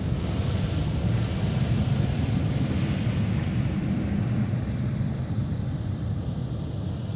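Jet airliner on landing, a deep steady rumble with a hiss above it that fades away over the last few seconds as the aircraft moves off.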